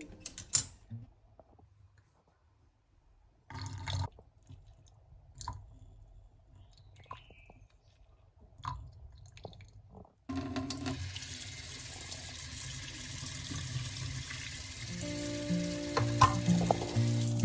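Water running from a tap into a sink, turned on about ten seconds in as a steady hiss, after a few scattered clicks and knocks of handling things; music fades back in near the end.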